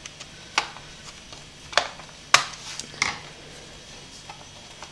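Four sharp plastic clicks over about two and a half seconds as an HP G62 laptop's hard-drive bay cover is pressed down and snaps into its clips.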